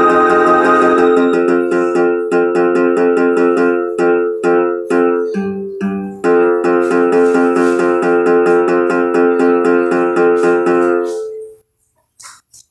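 Instrumental music: a loud held chord that breaks into short rhythmic stabs for a few seconds, swells back into a sustained chord, then stops about a second before the end.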